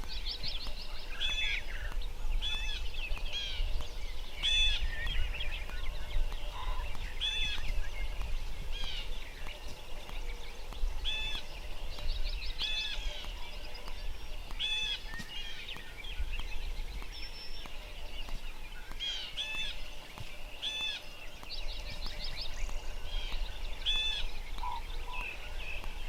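Songbirds calling in a dawn chorus: one bird repeats a short high note about every second and a half, and now and then a fast high trill breaks in, over a steady low rumble.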